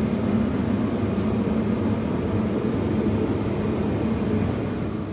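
Forced-air turbo heaters running steadily: a continuous low hum with a hiss above it.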